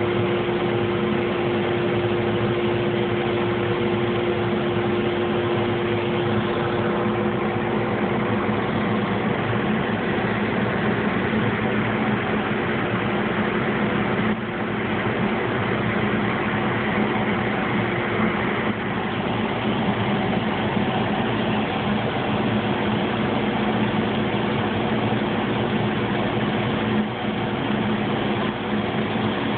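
Laser cutter running with a steady machine hum and a rush of moving air, with a few held tones in it; the strongest tone weakens about halfway through.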